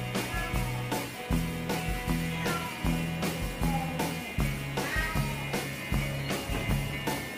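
Background music with guitar, bass and drums at a steady beat.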